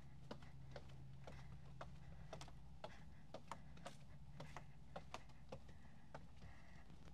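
Footsteps of a walker: short sharp clicks about twice a second over a faint steady low hum.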